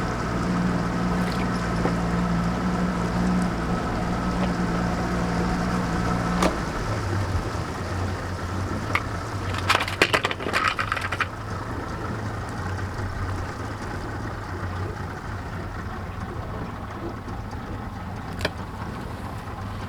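Boat motor running steadily, then throttling down to a lower, quieter hum about six and a half seconds in, with a brief burst of clattering about ten seconds in.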